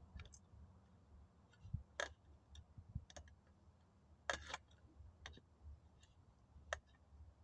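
A few faint, sharp metallic clicks from a Zippo lighter being handled and struck, spaced a second or so apart, with a longer scratchy click about four and a half seconds in.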